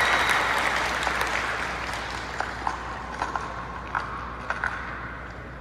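Audience applause and cheering in a large arena, dying away steadily, with a few short high squeaks in the middle.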